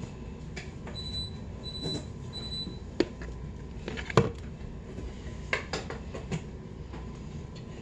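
A metal spoon scraping and tapping against a peanut butter jar as peanut butter is scooped out, giving a few sharp clicks, the loudest about three and four seconds in.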